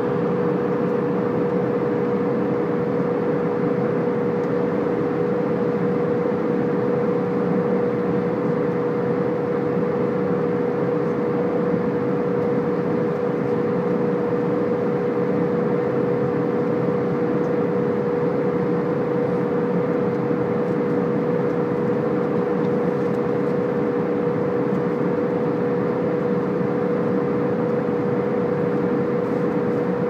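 Jet airliner in cruise flight heard inside the cabin: a constant rush of engine and airflow noise with a steady hum running through it, unchanging throughout.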